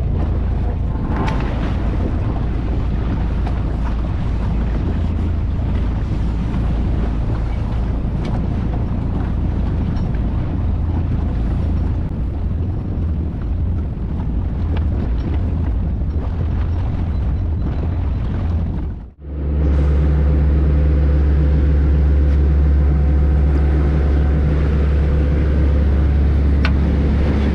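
Small fishing boat's engine running steadily with a deep hum. The sound breaks off for a moment about two-thirds of the way in, then the engine drone carries on steadier and slightly louder.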